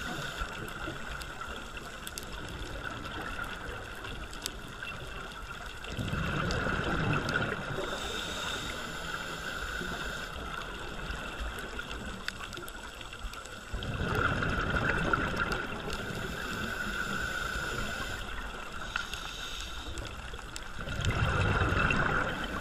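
Scuba diver breathing through a regulator underwater: exhaled bubbles rush out three times, about seven or eight seconds apart, each burst lasting two to three seconds, with a steady underwater hiss between breaths.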